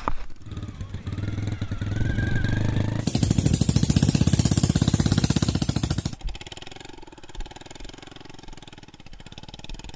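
Small custom chopper motorcycle engine running; it picks up revs, runs loud with a rapid, even firing beat for about three seconds, then drops back to a quieter run.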